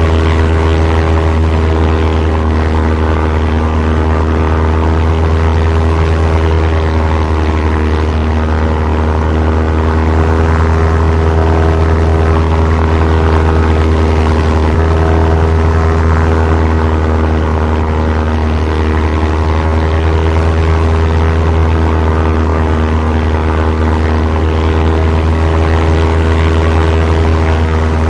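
WWII-era propeller airplane flying, its piston engine droning steadily at an even pitch with a deep hum.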